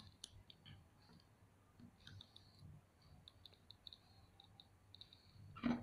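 Faint, scattered small clicks as armor pieces are handled and fitted onto an action figure's arm, with a louder click near the end.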